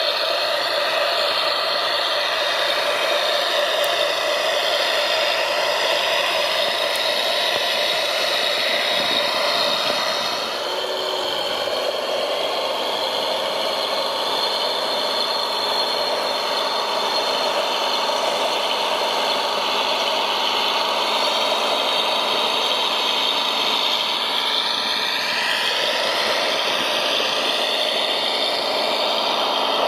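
Radio-controlled model construction machines running, with a steady whine and rattle from their drive motors and gearing. Near the end a few tones glide upward as the motors change speed.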